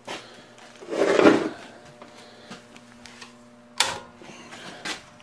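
Handling noises at a metal bandsaw: a rustling scrape about a second in, then two sharp clicks near the end, over a faint steady electrical hum.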